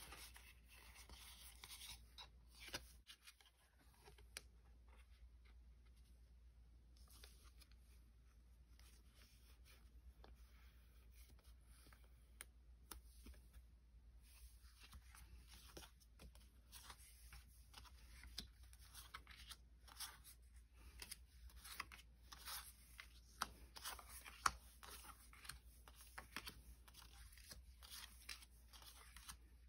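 Faint crinkling and tearing of foil booster-pack wrappers and handling of trading cards: many small irregular crackles and clicks, busier in the second half.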